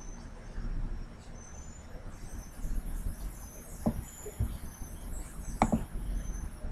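A few sharp computer mouse clicks, the loudest a little past halfway, over a low hiss of microphone and room noise. Faint short high chirps recur irregularly in the background.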